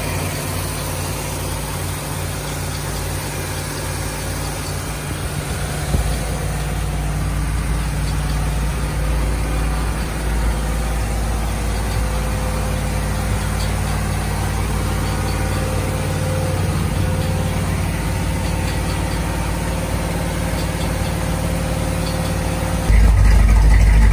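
A 1973 Corvette's V8 engine idling steadily shortly after being started. Near the end it becomes suddenly louder and deeper, heard close at the exhaust tips.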